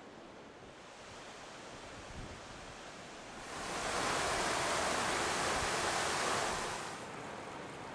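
Steady rush of a fast-flowing river, swelling up about three and a half seconds in and easing back near seven seconds. Before that there is a quieter, even outdoor hiss.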